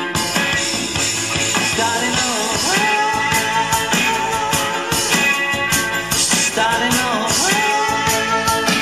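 A pop ballad playing, with guitar backing and a voice holding long sung notes in the middle and near the end.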